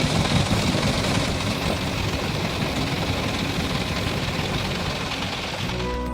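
Miniature tractor's engine running steadily, a dense rumble with hiss. Music comes in just before the end.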